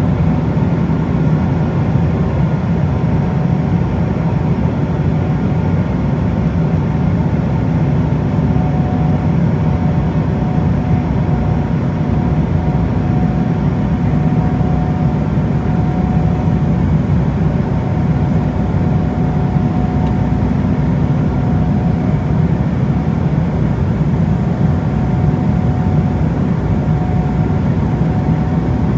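Steady cabin drone of an Embraer E190 airliner in flight: engine and airflow noise from its General Electric CF34 turbofans, even and unchanging, with a faint steady hum running through it.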